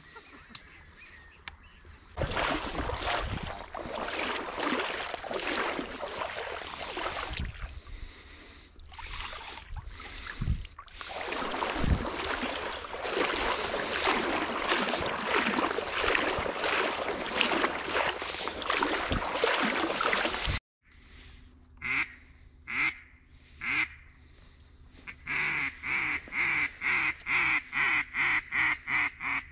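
Splashing and rustling through shallow water and reeds while a shot duck is retrieved by hand, ending at a cut about two-thirds of the way in. Then duck quacking: three single quacks, then a fast, even run of about a dozen quacks near the end.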